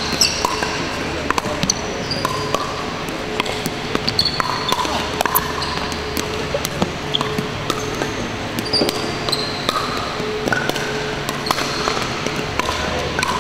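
Pickleball paddles striking a hard plastic ball in a fast doubles rally at the net: a run of sharp, irregular pocks, mixed with short squeaks of sneakers on the hardwood court.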